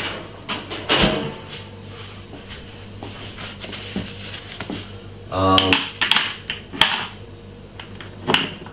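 Scattered clinks and knocks of kitchen utensils and containers being handled, with a denser clatter a little past halfway.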